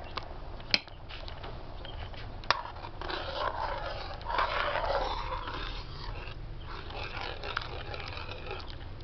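A metal ladle stirring soup in a wok, knocking sharply on the pan twice in the first few seconds, then a louder rough stretch of stirring for a few seconds in the middle.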